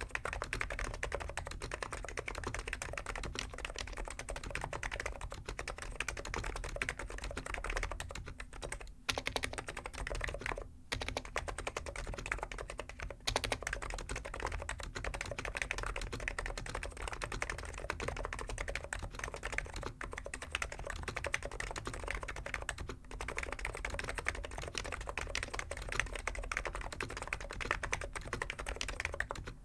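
Continuous fast typing on a Hansung GK893B keyboard with stock 50 g electro-capacitive (Topre-style) switches, a dense stream of soft keystroke clacks broken by a few brief pauses.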